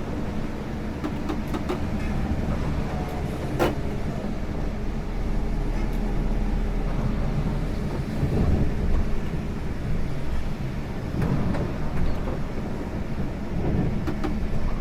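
Steady running noise inside a moving Scania K410 IB multi-axle coach: a low drone from its 13-litre six-cylinder diesel engine mixed with road noise, with a few light clicks and knocks. There is a sharper click about four seconds in.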